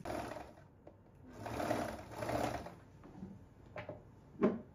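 Overlock sewing machine (serger) running for about a second and a half of stitching, then two sharp clicks near the end, the second one louder.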